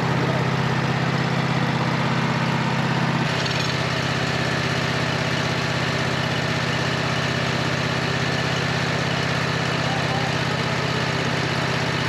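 Sawmill engine running steadily, its sound shifting about three seconds in.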